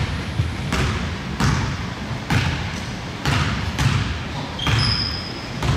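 A basketball being dribbled on a gym floor, with a sharp bounce about every second. A couple of short high squeaks come near the end.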